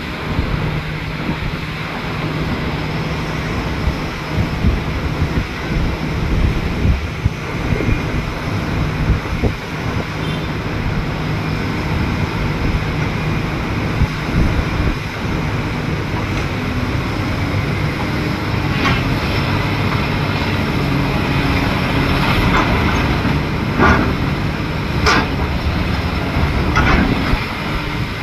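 Excavator's diesel engine running under load, its note rising about halfway through, with a run of sharp clanks from the machine near the end.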